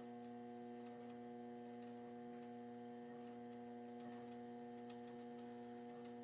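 Steady low electrical hum made of a mains-frequency tone and its overtones, with a few faint ticks now and then.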